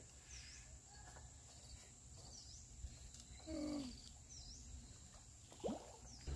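Quiet pond-side outdoor ambience: a steady high insect drone, with a short high chirp that dips and rises, repeated three times about two seconds apart. A brief low pitched sound about halfway through is the loudest moment, and a short falling swish comes near the end.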